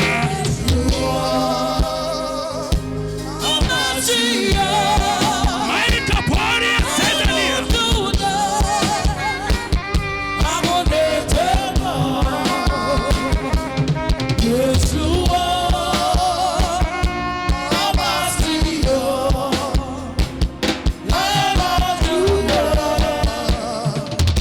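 Gospel band music with drum kit and singing, with a steady beat.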